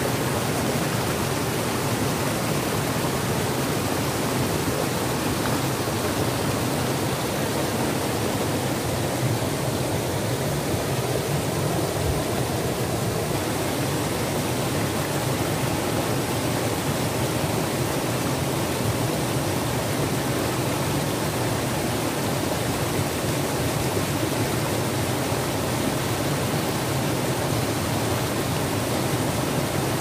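Rocky mountain stream rushing and splashing over boulders in small cascades, a steady, unbroken rush of water.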